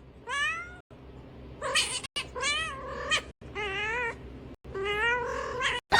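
A cat meowing over and over, about five drawn-out meows with wavering pitch, each separated by a short pause.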